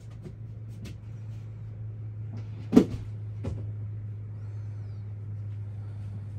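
A few light knocks and one loud thump about three seconds in, over a steady low hum.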